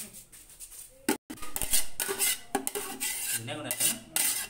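Metal kitchenware clattering: a rapid run of sharp clinks and scrapes of utensils against pots and dishes while cooked rice is being served.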